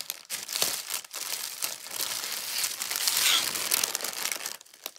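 Plastic mailer bag crinkling as a kit in clear plastic wrap is pulled out of it: a dense run of crackles that is busiest about three seconds in and dies away near the end.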